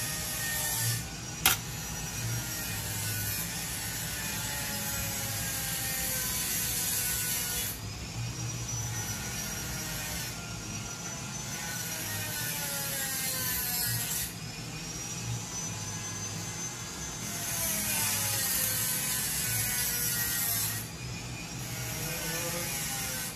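A small motor-driven tool running steadily, its whine dipping and then rising back up several times, with a high hiss that comes and goes. There is one sharp click about a second and a half in.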